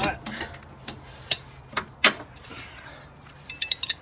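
Metal tools and parts clinking: a few sharp separate clicks and knocks, then a quick run of bright, ringing metallic clinks near the end.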